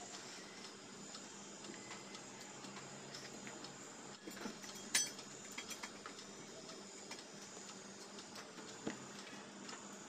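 Knife cutting chayote over a steel bowl of water, then set down with a sharp clink against the bowl about five seconds in, followed by soft handling of chayote shoot tips. There are small scattered clicks over a faint steady hum.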